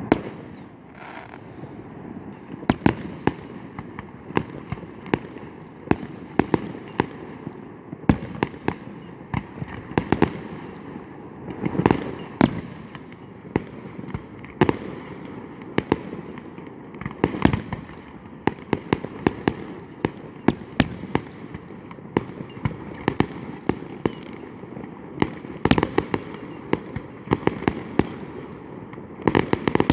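Fireworks going off: a long run of sharp bangs at irregular intervals, sometimes several in quick succession, over a steady background of noise between them.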